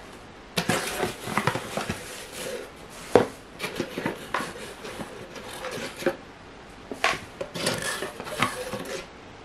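Cardboard product box being handled and turned over to empty it: irregular rustling and scraping with scattered light knocks, the sharpest about three seconds in.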